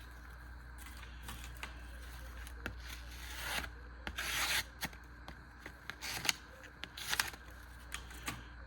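Crescent pocket knife's harpoon blade slicing through paper in a few short rasping strokes, with small clicks in between.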